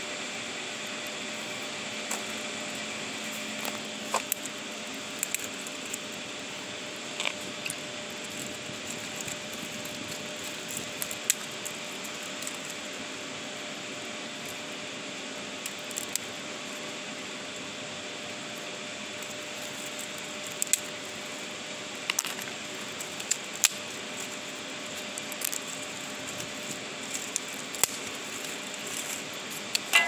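Campfire in a steel fire pit crackling, with scattered sharp pops that come more often in the second half. Underneath is a steady hiss of rushing water.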